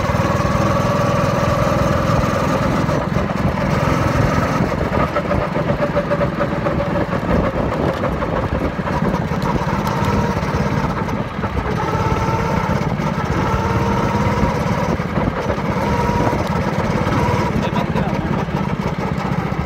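Motorcycle engine running steadily during a ride.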